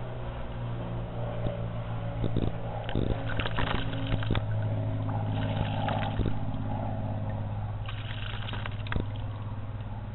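Blue jay bathing in a shallow concrete birdbath: three spells of splashing and wing-fluttering in the water, over a steady low hum.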